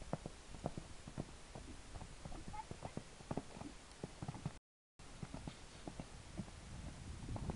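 Horse's hooves thudding on the sand footing as it canters and jumps, an irregular run of soft beats. The sound cuts out completely for a moment about halfway.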